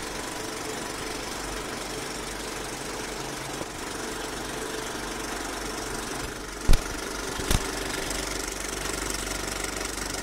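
Film projector running: a steady mechanical clatter with hiss, and two sharp pops a little under a second apart past the middle.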